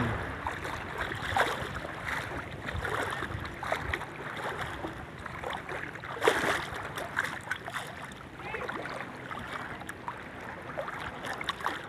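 Seawater sloshing and splashing as someone wades through the shallows: irregular splashes over a steady wash of small waves.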